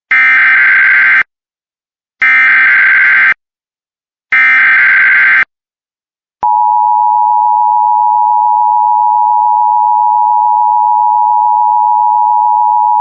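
Emergency Alert System SAME header: three buzzing bursts of digital data tones, each about a second long and two seconds apart. A single steady high attention tone starts about six and a half seconds in and holds without change.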